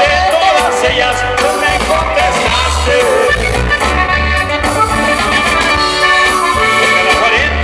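Loud Latin American music with a steady pulsing bass line.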